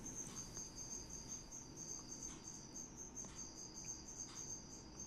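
Faint, steady, high-pitched insect chirping in a fast, even pulse, with a few soft rustles and taps of cable and plastic being handled.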